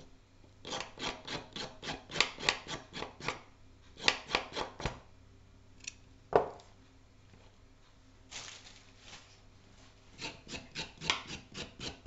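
Kitchen knife scraping the skin off a raw carrot in quick rasping strokes, about five a second, in several runs with pauses between them. A single sharp knock comes about six seconds in.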